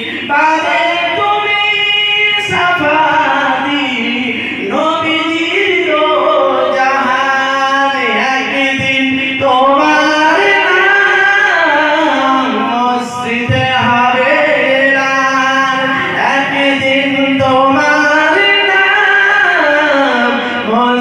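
A man singing a Bengali Islamic devotional song (gojol) in long, drawn-out phrases of several seconds each, his pitch gliding up and down, with brief breaths between phrases.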